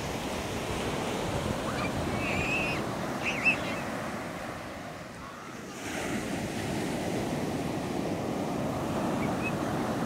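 Small sea waves breaking and washing up a sandy beach: a continuous surf rush that eases about five seconds in and swells again as the next wave breaks. A few short high chirps come two to three seconds in.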